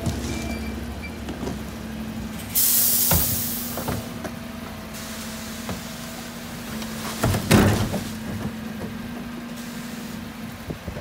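Refuse truck's engine running at a steady hum while the Terberg OmniDEL rear bin lift tips a wheelie bin of garden waste. A loud hiss of air comes in a few seconds in. Knocks follow, with a loud bang about seven and a half seconds in as the bin is shaken against the lifter.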